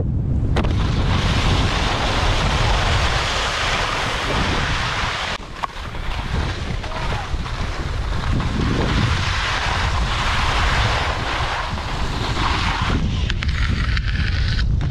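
Wind buffeting the microphone with skis hissing and scraping over packed snow during a fast downhill ski run, a steady loud rush with a brief lull about five and a half seconds in.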